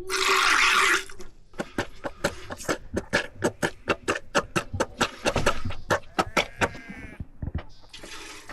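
Sheep being milked by hand: jets of milk squirting into a pail in a quick, even rhythm of about four squirts a second, after a hiss about a second long at the start. A sheep bleats near the end.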